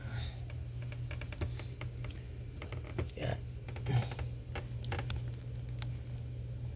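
Light, irregular clicks and taps over a steady low hum.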